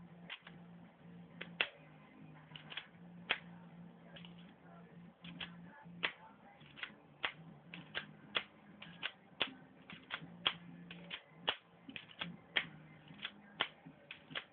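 K'NEX slide-action pistol being worked by hand: sharp plastic clicks, about thirty at irregular spacing and some in quick pairs, as the slide is racked back and forth. A steady low hum sits underneath.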